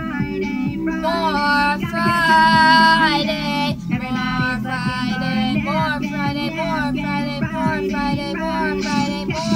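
A high voice singing a pop song over a music backing track.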